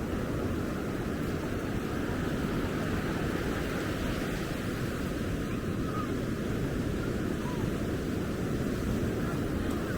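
Ocean surf washing steadily, mixed with wind: a constant rushing noise with no single wave standing out.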